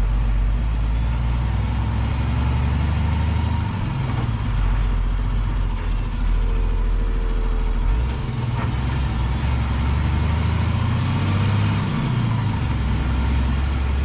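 Flatbed tow truck's diesel engine running as the truck drives along the motorway, with tyre and road noise; the low engine note shifts a few times.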